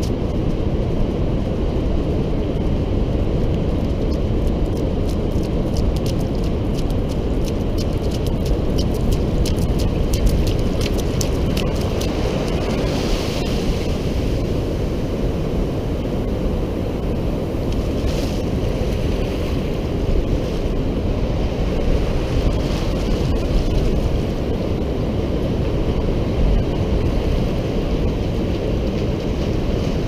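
Ocean surf washing in, with wind rumbling on the microphone. A run of sharp crackles comes in the first third, and a couple of brief hissing surges come around the middle.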